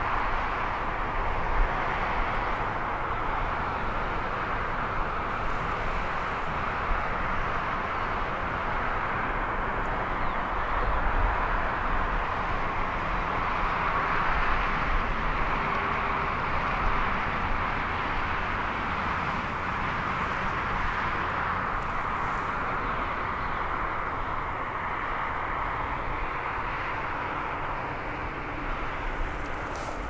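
Steady traffic noise from cars passing on a nearby road: a continuous tyre-and-engine hiss over a low rumble, swelling a little midway and easing off toward the end.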